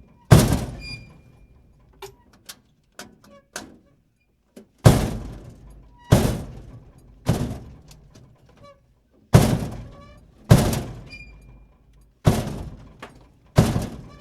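Trash bin door banging shut again and again: about nine sharp bangs, each trailing off over about a second, with a few light clicks between the bangs about two to four seconds in.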